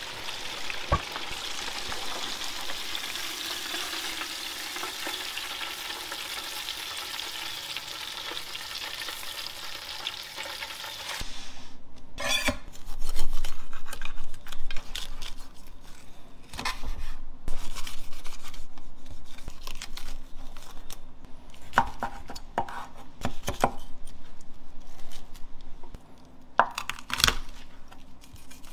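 Hot oil in a turkey fryer pot sizzling steadily. About eleven seconds in the sizzle stops, and a knife crunches through crispy fried turkey skin and meat on a cutting board in a series of short crackling cuts.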